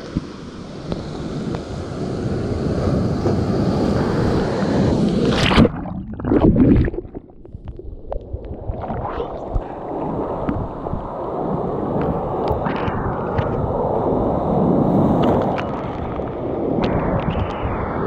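Sea waves surging and washing around the water's surface, heard from right at the waterline, with splashing and wind on the microphone. About six seconds in there is a sharp splash and a louder surge as a wave breaks over, then it eases briefly before the wash builds again.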